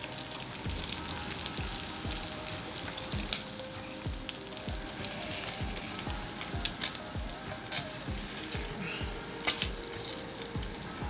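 Bacon sizzling in a hot frying pan, with a few sharp clicks of a utensil against the pan. A steady low beat runs underneath, about two thumps a second.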